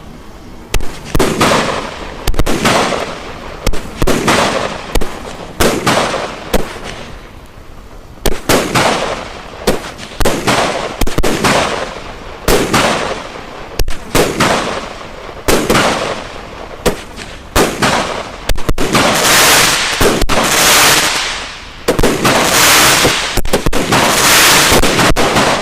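Consumer firework cake firing its 19 shots one after another, about one shot a second, each launch followed by a hissing, crackling tail. Near the end the shots give way to longer stretches of dense crackling from the effects.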